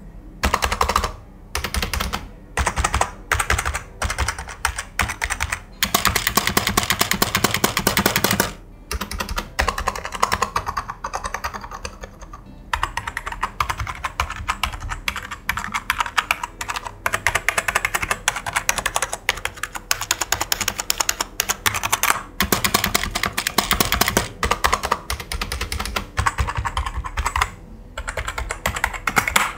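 Typing on a Walton WKG005WB membrane gaming keyboard, whose long-travel membrane keys are built to give a mechanical-like feel. Single key presses come first, then fast runs of typing with short pauses.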